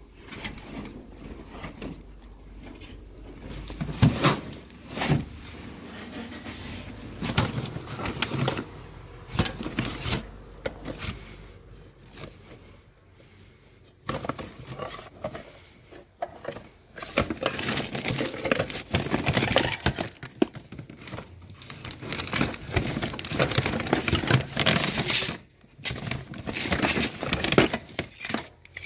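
Handling noise from rummaging through bags, toys and plastic bags: irregular rustling and crinkling with small knocks as things are shifted about, busier in the second half.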